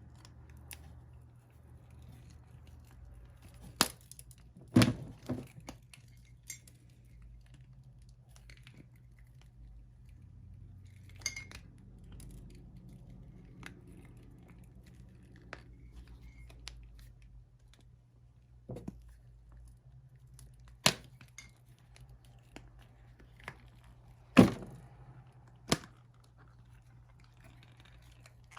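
A hard cured resin block being taken out of its mold and handled on a work surface: scattered sharp knocks and clicks, the loudest about five seconds in and again about three-quarters through, over a low steady hum.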